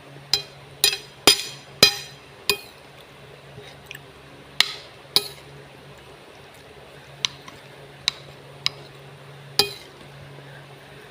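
A metal utensil clinking against a bowl as the noodles are stirred: about eleven sharp, ringing clinks, several in quick succession near the start and then more spaced out.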